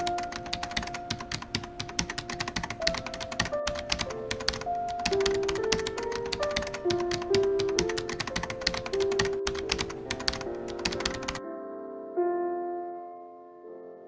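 Rapid keyboard typing sound effect clattering over a soft instrumental melody. The typing stops suddenly about eleven seconds in, and the music carries on alone, fading.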